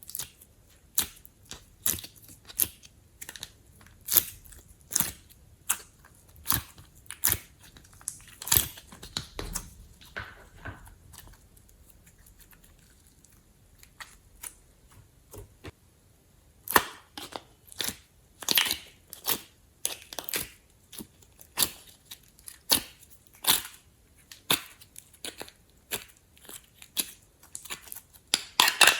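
Glossy slime being squished and kneaded by hand, giving sharp sticky clicks and pops one or two a second, with a quieter pause about halfway through.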